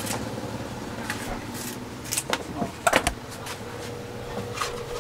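Scattered clicks and knocks from handling, the loudest pair about three seconds in, over a faint steady hum.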